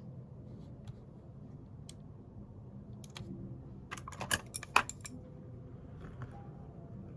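Scattered light clicks and taps over a low steady room hum, with a quick run of sharper clicks about four seconds in.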